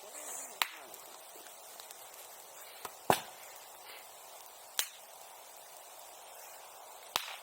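Bonfire popping: sharp, firecracker-like cracks at irregular intervals, about six in all, the loudest about three seconds in and two close together near the end, over a faint steady hiss.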